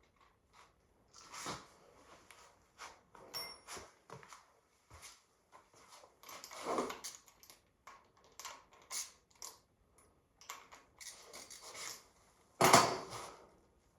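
Hand tools and metal engine parts being handled: irregular clicks, clinks and short scrapes, with one loud knock near the end.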